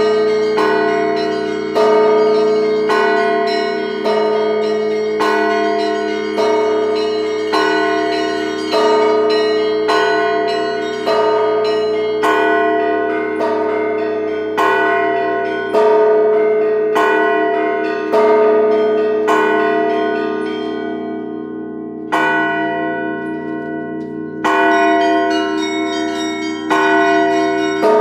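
Russian church bells rung by hand, their clappers struck in a steady rhythm: a main stroke about every second and a bit, with lighter, higher bells struck between the strokes over a sustained bell hum. About three-quarters of the way through, the strokes stop for a few seconds and the ringing fades, then the full peal starts again.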